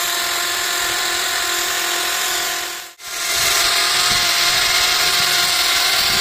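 Electric hand drill spinning a mounted grinding stone against the turning point of a lathe live center, grinding the damaged point true: a steady motor whine under a grinding hiss. The sound drops out for a moment about three seconds in and comes back with the grinding hiss louder.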